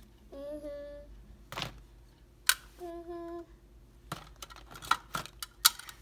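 Small toys and a paper gift bag being handled: a series of sharp clicks and crackles, the loudest about two and a half seconds in and near the end. A child hums two short steady notes, one near the start and one around the middle.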